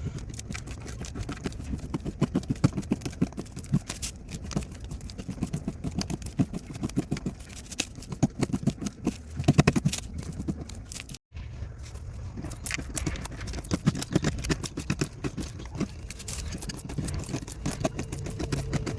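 Knife cutting through dry soap: rapid crunchy clicks and crackles, with a brief break about eleven seconds in before the cutting resumes.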